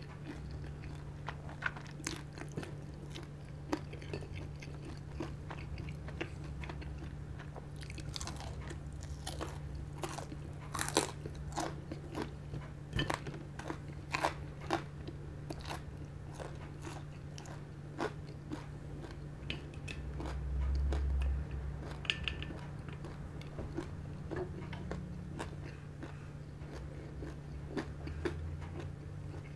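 Close-miked chewing and crunching of crispy deep-fried pork belly (lechon kawali), with irregular crisp crunches that are densest in the first half. About two-thirds of the way through there is a brief low rumble.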